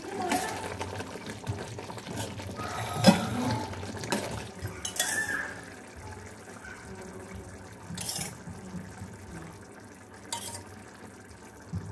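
Steel ladle stirring thick gravy in a stainless steel pot, with a wet stirring sound and several sharp metal clinks spread through it.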